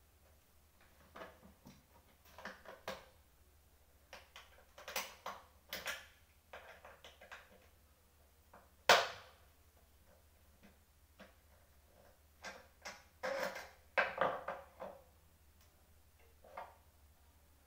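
Irregular clicks, knocks and clatters of hand work on a chrome-framed office chair, with one sharp, loud knock about nine seconds in and a busier run of knocks a few seconds later.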